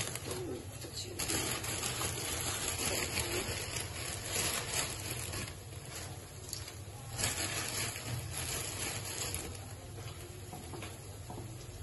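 Pot of water at a boil on a gas stove, a steady bubbling hiss, as noodles are pushed down and stirred into it by hand, with a few light clicks.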